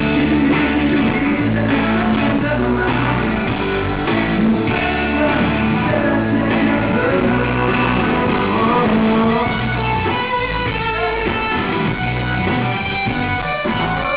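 Live rock band playing loudly, with guitars, bass guitar and a singer's voice.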